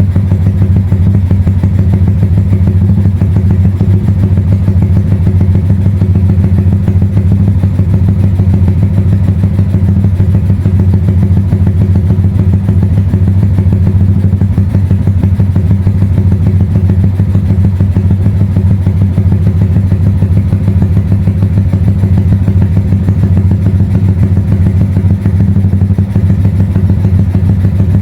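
Tuned single-cylinder four-stroke motorcycle engine idling steadily and loudly as it warms up, with no revving.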